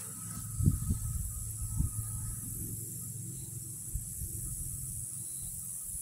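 Wind rumbling on the microphone, with a few louder bumps in the first two seconds, over a steady high hiss.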